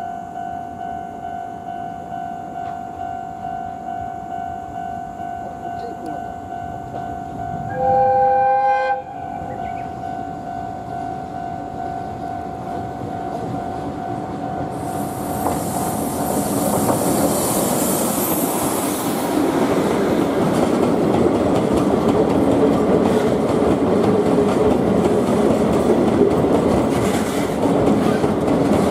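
A Chichibu Railway Deki electric locomotive sounds one short horn blast about eight seconds in, over the steady pulsing ring of a level crossing bell. It then hauls a long train of loaded limestone hopper wagons past, with a few seconds of hiss as it comes alongside, and the wheels rumble and click louder through the second half.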